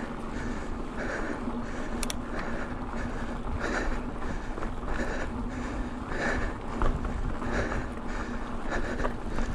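Mountain biker breathing hard in a steady rhythm, about one breath a second, over the rumble of bike tyres rolling on a rough dirt track.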